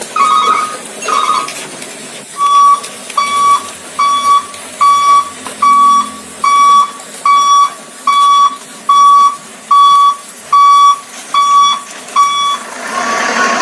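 Toy vehicle's electronic beeper sounding a steady run of short, identical beeps, about one every 0.8 seconds, like a reversing alarm.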